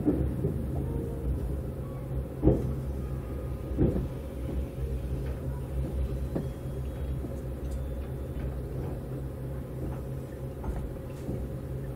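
Inside a Tobu 200-series Ryomo limited express car rolling slowly: the train's steady low running hum with a faint steady tone, and scattered short knocks, the loudest about two and a half and four seconds in.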